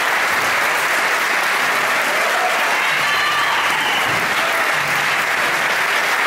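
Audience applauding steadily at the end of a live rock song.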